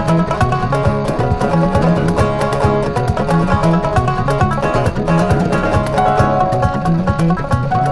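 Background music: quick plucked-string notes over a steady, even beat.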